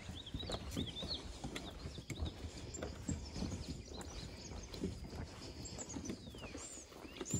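Footsteps thudding on a wooden boardwalk at a steady walking pace, with small birds chirping over them and one falling whistled note near the end.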